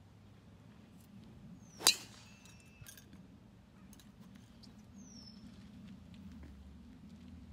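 A golf driver strikes a teed ball once with a sharp, loud crack about two seconds in, with a brief ringing after it. Short bird chirps are heard faintly around it.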